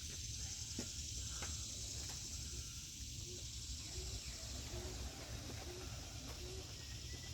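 Faint pigeon cooing: a string of short, low notes through the middle, over a steady high insect drone and a low outdoor rumble.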